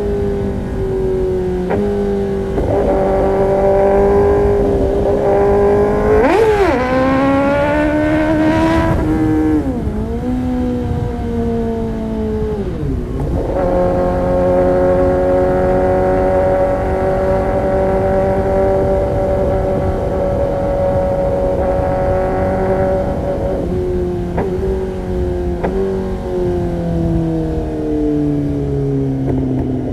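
Kawasaki ZX-10R inline-four sport bike with an Arrow Pro-Race competition exhaust. The revs climb and drop sharply several times in the first half, hold steady for about ten seconds, then fall away with a few short blips near the end.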